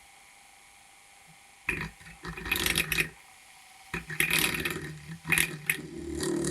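Small electric drill with a 1.5 mm bit, set to a slow speed, run in short bursts and then more steadily near the end as it starts boring into the broken-off headphone plug lodged in an iPad's jack, with scraping and rubbing noises.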